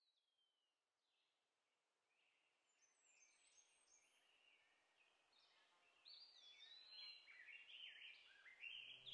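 Near silence, then birdsong fades in about two and a half seconds in, faint at first and fuller from about six seconds in: many overlapping chirps and short falling whistles, as of a woodland chorus.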